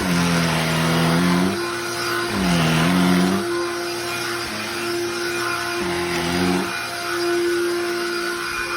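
Cordless handheld vacuum running, its motor holding a steady whine while a lower tone sags and recovers in pitch three times, about every three seconds.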